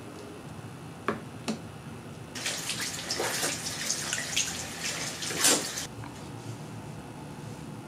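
Two sharp clicks, then a bathroom sink tap running and splashing over hands being washed for about three and a half seconds, cutting off suddenly.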